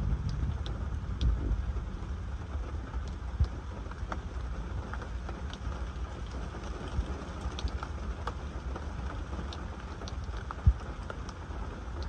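Scattered raindrops ticking on a car's windows and roof at irregular intervals, over a steady low rumble, with one louder tap near the end.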